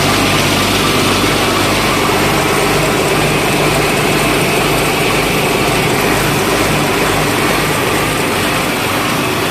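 A 280-bar sewer jetter running steadily, its engine driving the high-pressure water pump: a low, even engine hum under a dense steady hiss.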